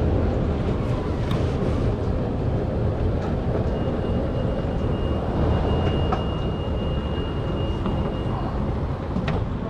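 Airport escalator running: a steady low rumble with a few light clicks, and a faint high whine through the middle.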